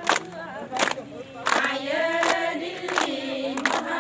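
Group of women singing a ponung folk song together, with rhythmic hand claps about every three-quarters of a second keeping time.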